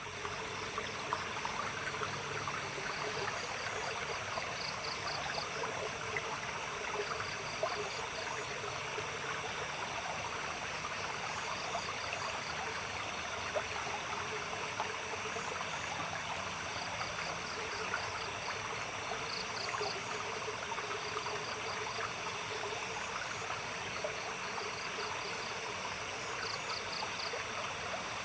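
Small stream trickling steadily, with night insects chirping in short pulsed trains that come every few seconds.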